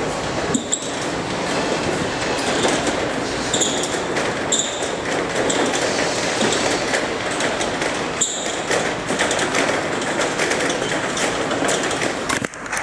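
Steady engine and road noise of a V8 car while driving, with a few light clicks.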